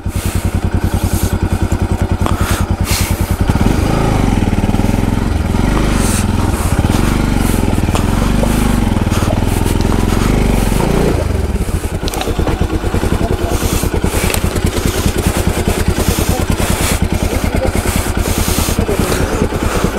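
Motorcycle engine running as the bike crawls over rough, muddy ground. For several seconds in the middle it pulls harder, its pitch wavering up and down, then it settles back to a steady, lighter running.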